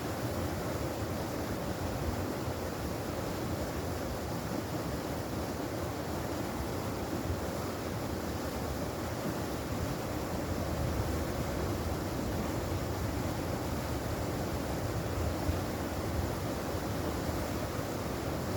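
Mountain valley stream flowing steadily over rocks, a constant even rush of water.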